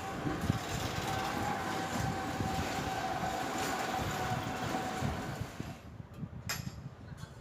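A machine running with a steady whine over a noisy hum, stopping about six seconds in, followed by a few light clicks.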